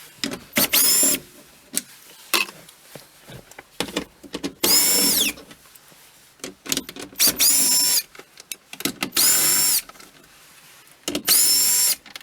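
Cordless drill/driver backing out 10 mm bolts: five short bursts, each rising in pitch as the motor spins up and then holding, one winding down audibly at its end, with small clicks and rattles of parts and handling between them.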